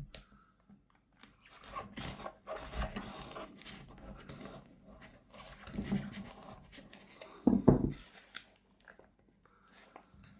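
Kitchen knife cutting and sawing into the foam midsole of a Onemix Light Armor running shoe: irregular crunching and scraping strokes, with a louder thump about three quarters of the way through.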